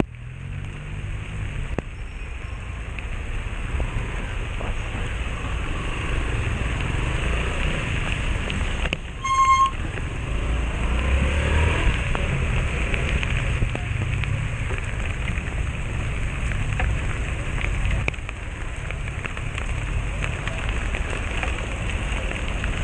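Motorcycle engine running at low speed in stop-and-go traffic, its pitch rising and falling, over a steady hiss of rain and wind on the microphone. A short horn beep sounds about nine seconds in.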